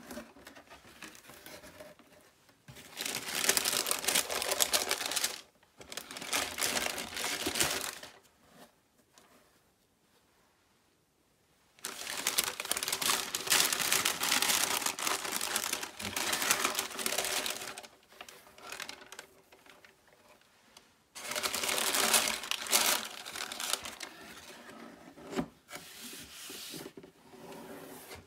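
Tissue wrapping paper crinkling and rustling as a cardboard shoebox is opened and the paper is pulled back from the sneakers. It comes in four bursts of a few seconds each, with quiet pauses between them.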